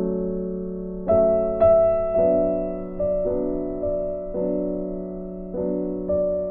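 Background music: soft piano or electric piano chords, each struck and left to fade, changing about once a second.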